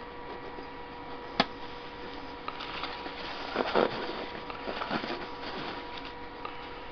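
Hand-handling noise at a stopped lathe: one sharp click, then a few seconds of rustling and scraping as a paint squeeze bottle and the workpiece are handled, over a faint steady electrical hum.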